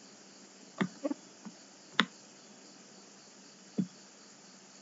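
About five short, sharp clicks at uneven intervals over a faint steady hiss, most likely a computer mouse being clicked; the sharpest comes about two seconds in.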